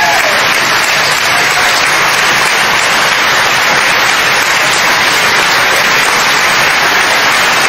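Large audience applauding steadily: a dense, even wash of many hands clapping.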